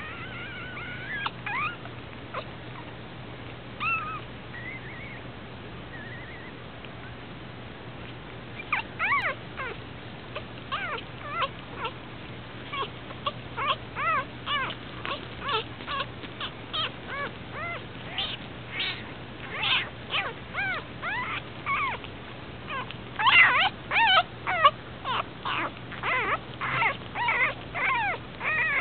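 Newborn puppy, eyes not yet open, crying in short high squeaks that rise and fall in pitch. A few come at first, then a quick run of many from about eight seconds in.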